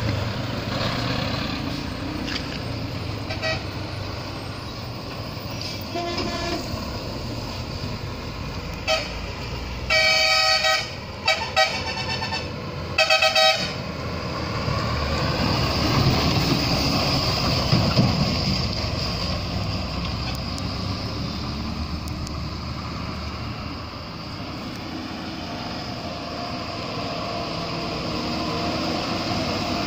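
Diesel engines of heavy trucks and a bus passing on a hairpin bend. From about nine seconds in, a vehicle horn gives five blasts in quick succession, the longest about a second. Then an engine grows louder as a vehicle comes past and fades again.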